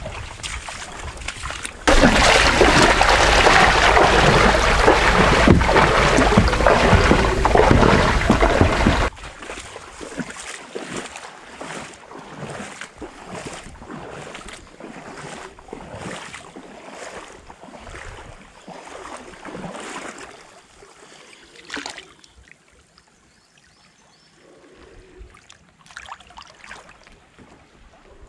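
Sea water sloshing and splashing in shallow water among rocks, with softer irregular splashes about once or twice a second. About two seconds in, a loud, even rushing noise starts suddenly and cuts off about seven seconds later.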